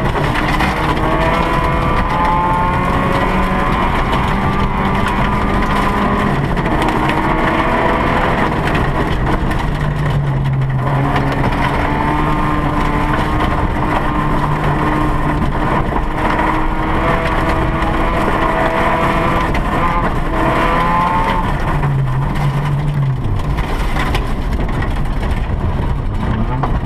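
Rally car engine heard from inside the cabin, running hard at high revs on a dirt stage. Its pitch drops and climbs again at several gear changes, over a steady rush of tyres and gravel.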